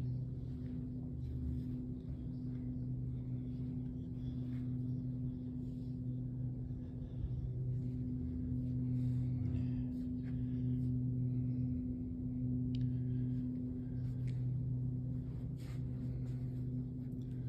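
A low, steady humming drone with a second, higher tone above it, swelling and easing slightly in level, with faint small clicks now and then.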